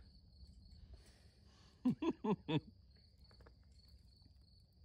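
Crickets chirping steadily in a high, continuous trill. About two seconds in, a person's voice gives four quick, short sounds in a row.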